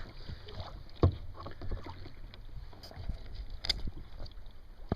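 Water lapping and splashing against a Barracuda Beachcomber kayak's hull as it moves along, with a few irregular light knocks; the loudest comes about a second in.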